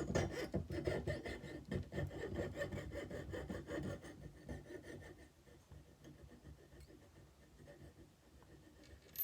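Jeweller's saw with a fine 6/0 blade cutting through fine silver tubing: rapid, light rasping back-and-forth strokes that thin out and fade after about four seconds as the cut finishes.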